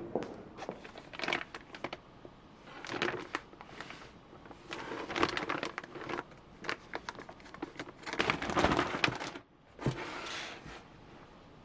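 Packaging crinkling and rustling as it is handled, in irregular bursts with small clicks and knocks, loudest about eight seconds in.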